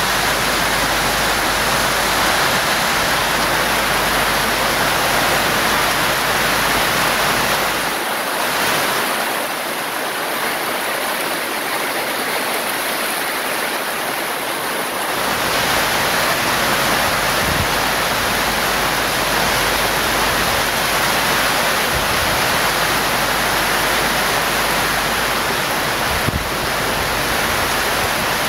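Heavy rain pouring down in a strong wind: a loud, steady hiss of rain with a low wind rumble that drops away for several seconds about eight seconds in.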